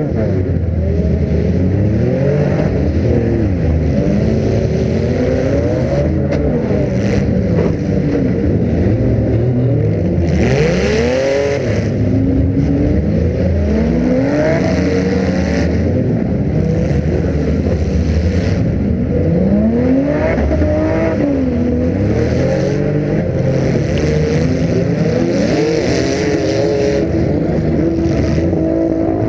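Demolition derby car engines revving up and down hard, recorded on board, with several engines rising and falling in pitch over one another. Several bursts of rushing noise break in over the revving.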